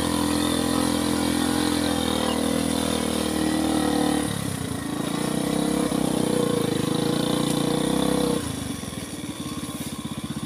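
Agricultural three-wheeler truck's engine pulling steadily in its extra-low three-stage reduction gear as the loaded truck climbs a rise. The tone shifts about four seconds in, and a little past eight seconds the engine drops to a quieter, slower, even putter.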